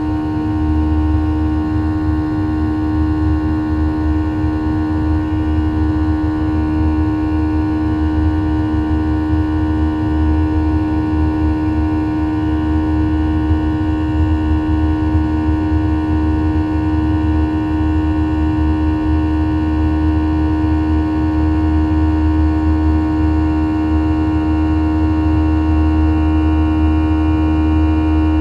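Cabin sound of a Boeing 737-800's CFM56-7B turbofan engines at climb power after takeoff: a steady, loud hum with several held tones over a low rumble.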